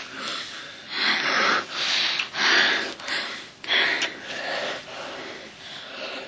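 A couple breathing heavily while kissing: loud, breathy gasps and exhalations, about one a second.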